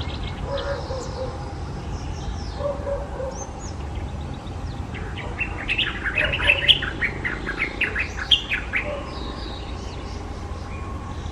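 White-browed bulbul singing: a rapid burst of jumbled, chattering notes starting about five seconds in and lasting about four seconds. Fainter bird calls come before it, over a steady low rumble.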